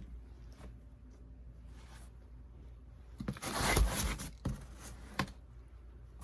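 A cotton T-shirt being handled: fabric rustling, loudest for about a second in the middle, with a couple of short knocks just after.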